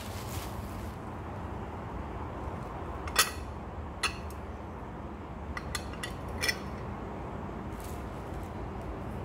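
A glass teapot being handled, giving about five short, light glass clinks as its glass lid and insert knock against the pot; the loudest clink comes about three seconds in.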